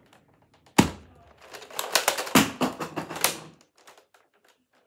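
Plastic clicking and clacking of a pump-action Nerf shotgun blaster being worked: one sharp snap about a second in, then a quick run of rattling clicks lasting about two seconds.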